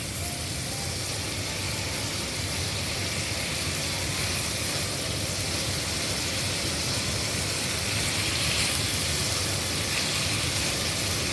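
Stir-fry vegetables and chicken sausage sizzling in a hot pan, a steady hiss.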